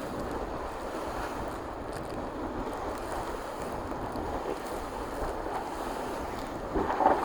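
Onboard an IMOCA racing yacht under sail: a steady rush of water along the hull and wind, with wind buffeting the microphone. A louder surge comes near the end.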